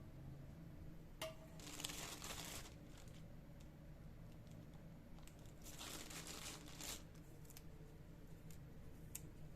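Quiet kitchen handling noise: a light click about a second in, then two brief rustling scrapes, a few seconds apart.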